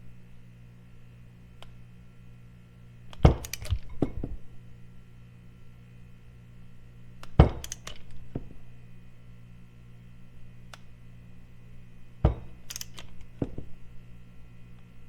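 Metal hand tools and engine parts being handled and set down: several sharp clinks and knocks spread apart, the loudest about three and seven seconds in, with a few more near the end. A steady electrical hum runs underneath.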